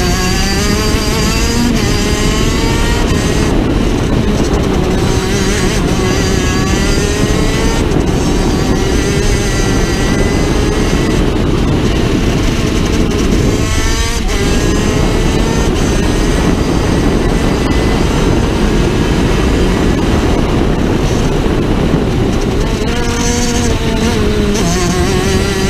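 Vortex 125cc two-stroke shifter kart engine heard onboard at racing speed, its note rising and falling as it revs through the gears. There is a short dip about halfway through.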